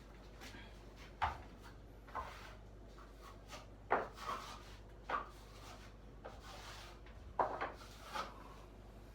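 Short, irregular scrapes and knocks of a putty knife working joint filler on a cracked ceiling, about seven in nine seconds, the loudest about four seconds in and again near the end.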